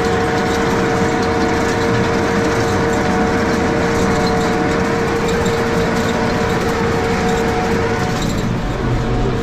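Tractor engine running steadily while pulling a no-till interseeder, heard from inside the cab, with a steady whine over the engine that stops near the end.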